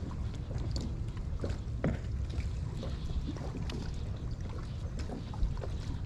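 Wind buffeting the microphone as a steady low rumble, with water lapping against a boat hull and scattered light clicks and taps.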